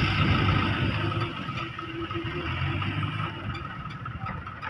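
Diesel engines of a concrete mixer truck and a CAT mini excavator running steadily: a low rumble with a faint steady whine above it, a little louder near the start.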